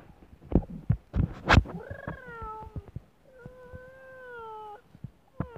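A dog giving drawn-out whining calls during rough play, one held steady for over a second in the second half. Several loud thumps of handling noise come in the first second and a half.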